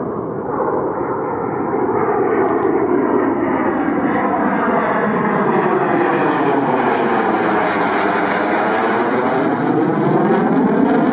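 An F/A-18's twin jet engines as it flies low overhead with its landing gear down on approach. The jet noise is loud, rising over the first two seconds and then holding steady, with a swirling, phasing sweep as the aircraft passes over.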